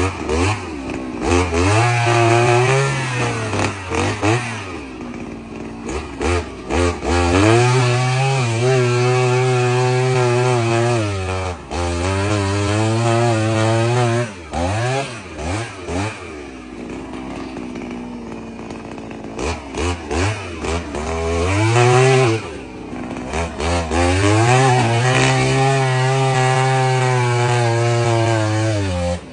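Kamatsu KM 44 petrol earth auger's small engine being revved repeatedly: it climbs to a high, steady pitch, holds for a few seconds, then drops back to idle, four or five times over.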